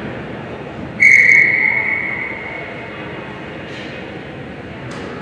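Referee's whistle blown once, about a second in: a short, loud, steady high blast that echoes around the ice arena as it dies away.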